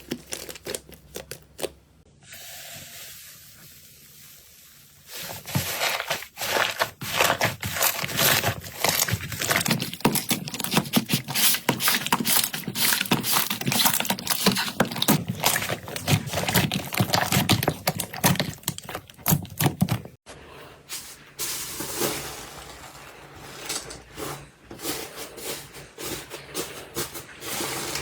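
Hands playing with slime, making dense sticky crackling and clicking, with a quieter hissy stretch a few seconds in. The sound changes abruptly several times from one clip to the next.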